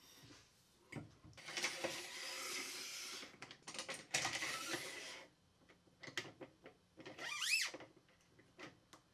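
JessEm TS Stock Guides sliding along the rail on top of a table saw fence: two stretches of sliding scrape, then a few clicks and a short rising squeak late on.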